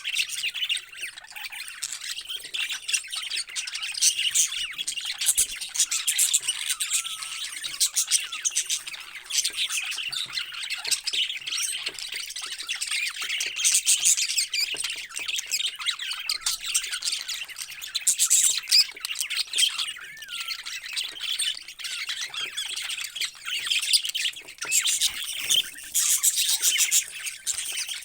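Many parrots chattering and squawking together, a dense unbroken stream of short high calls and chirps.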